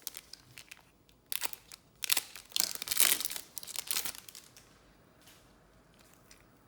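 A foil trading-card pack wrapper being torn open and crumpled: crinkling and tearing in bursts from about one to four seconds in, loudest around three seconds.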